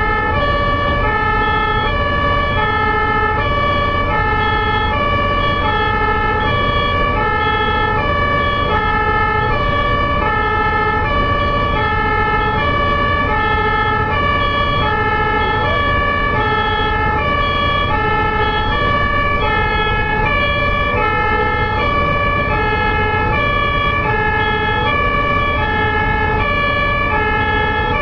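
German ambulance two-tone siren (Martinshorn) sounding continuously, alternating steadily between a high and a low tone about every three-quarters of a second, over a steady low vehicle and road rumble.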